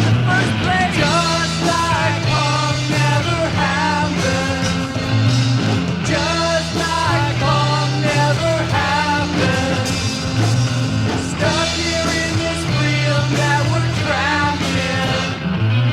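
Rock music with a singing voice over held bass notes.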